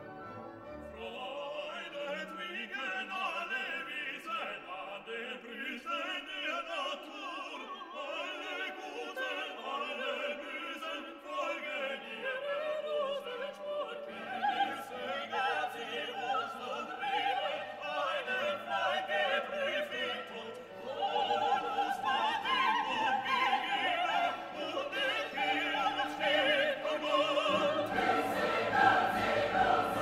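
Background music: classical singing with orchestral accompaniment, deeper notes joining about halfway through and again near the end.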